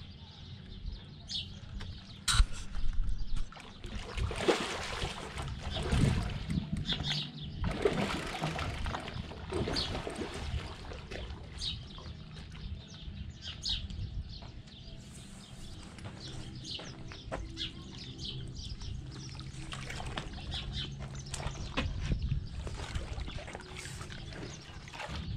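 Water splashing as a hooked redtail catfish (pirarara) thrashes at the surface at the bank and is scooped into a landing net, with birds chirping now and then.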